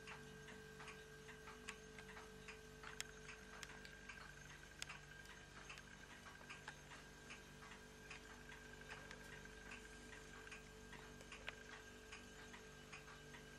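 Faint, rapid, regular ticking, about three to four ticks a second, over a faint steady hum.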